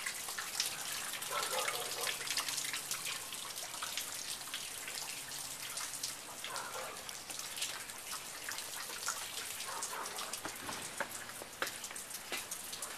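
Rain falling outdoors, with many small irregular drop ticks and drips.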